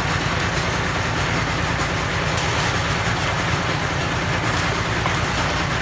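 An engine running steadily, an even low hum with no change in speed.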